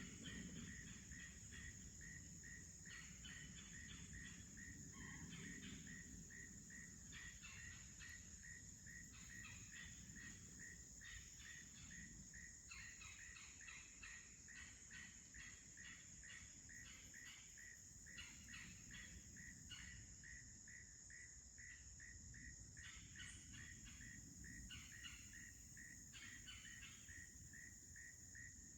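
Faint insect chorus: a steady high-pitched trill under an evenly pulsing chirp, with irregular bursts of rasping, cricket- or katydid-like pulses.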